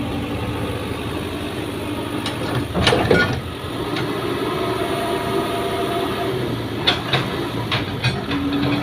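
Heavy diesel engines of an excavator and truck running steadily, with a cluster of sharp knocks about three seconds in and a few more near the end.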